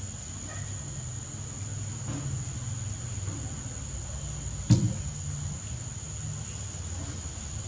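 A steady high-pitched whine over a low rumble, with one sharp knock a little past halfway.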